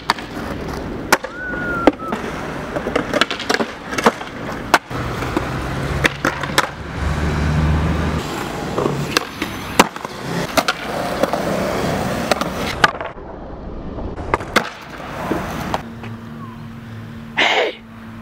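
Skateboards on concrete: wheels rolling, with repeated sharp clacks of tails popping, boards landing and trucks hitting ledges. Near the end there is a short loud scraping burst.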